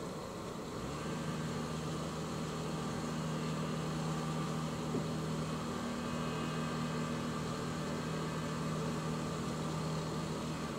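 Small cruiser's engine running steadily at low revs: a low, even hum that comes in about a second in and cuts off abruptly near the end.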